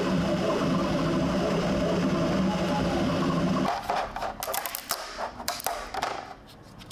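Bambu Lab X1 Carbon 3D printer printing in its fastest Ludicrous speed mode, the motors whirring with shifting tones; it cuts off about four seconds in, and a run of sharp clicks and crackles follows as the printed part is snapped off a flexed build plate.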